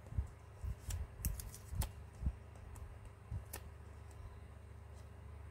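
Small handling noises of fingers working with phone repair parts and a plastic protective film: about seven short clicks and soft taps in the first three and a half seconds, then only faint handling.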